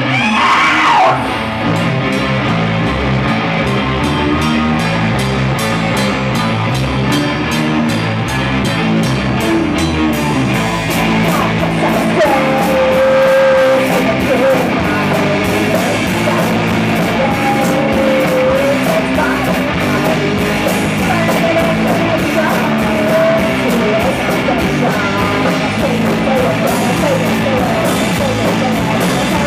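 Live rock band playing: electric guitar, bass guitar and a drum kit keeping a steady beat, with a woman singing lead into a microphone.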